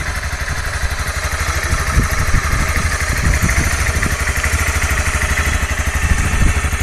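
Honda CRF250L's 250 cc single-cylinder four-stroke engine idling steadily with a fast, even beat.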